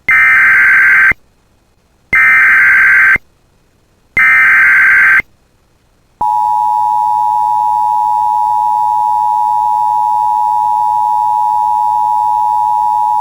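Emergency Alert System header: three one-second bursts of screeching SAME data tones, a second apart, then about six seconds in the steady two-tone EAS attention signal, two close tones sounding together.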